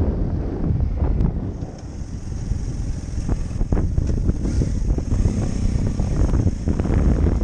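Heavy wind buffeting on a helmet-mounted microphone while riding a motorcycle on a gravel road, with the bike's engine and tyre noise underneath and scattered small knocks. The rush eases briefly about two seconds in.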